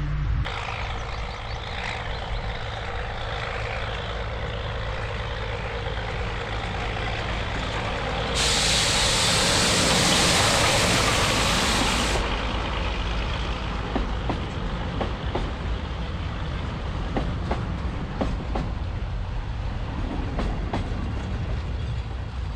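A heritage railway train running steadily with a low engine rumble. About eight seconds in, a loud hiss of released air or steam lasts around four seconds and then cuts off. Light rattling clicks follow.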